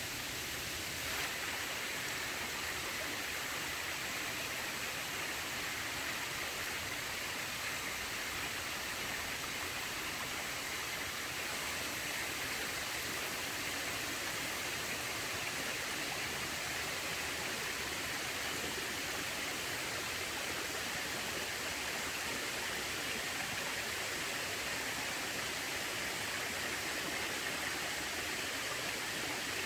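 Small waterfall running with a fairly low flow: a steady, even rush of falling water.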